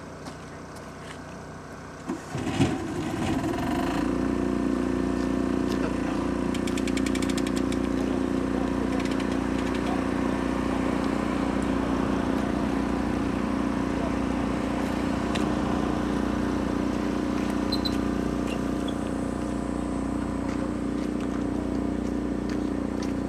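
An engine starting about two seconds in, then running at a steady, unchanging idle.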